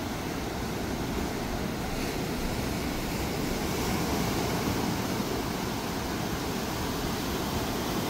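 Surf breaking along a sandy beach: a steady rushing noise that swells slightly in the middle.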